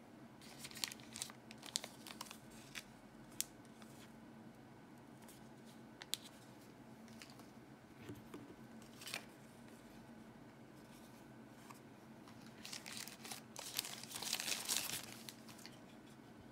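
Packaging in a phone's cardboard retail box handled: scattered light clicks and taps, then crinkling of wrapping for a few seconds near the end as the wall charger is taken out.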